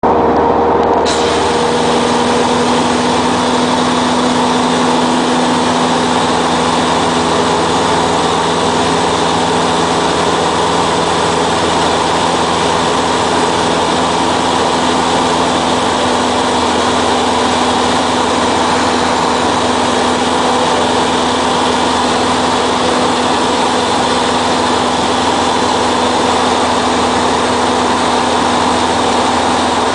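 Cessna 172SP's four-cylinder Lycoming IO-360 engine and propeller running at steady cruise power, heard from inside the cabin as a constant drone with a few steady tones.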